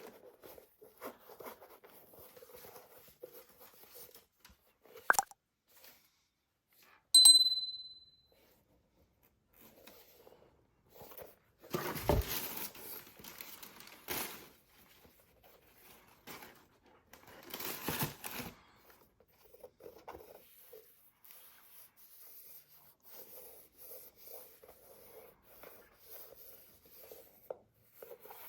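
Paper packaging from a boot box being handled: scattered rustling and crinkling, with louder tearing and crumpling about twelve and eighteen seconds in. A brief high ringing ping about seven seconds in is the loudest sound.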